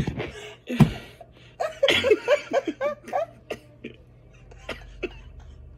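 Laughter: breathy laughing, then a run of quick, high ha-ha-ha pulses about two seconds in, fading into softer chuckles. Two sharp knocks sound near the start.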